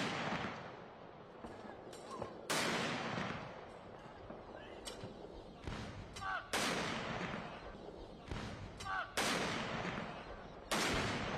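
Field guns firing a ceremonial gun salute: five heavy booms two to four seconds apart, each trailing into a long rolling echo, with fainter cracks in between.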